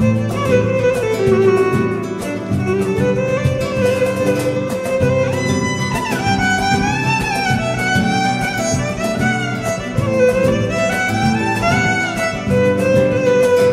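Background music: a violin melody with vibrato over string accompaniment and a quick, steady beat.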